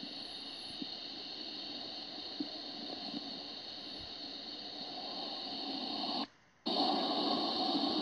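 Steady hiss of background noise with a faint high hum and a few faint clicks. It cuts out for a moment about six seconds in, then comes back a little fuller.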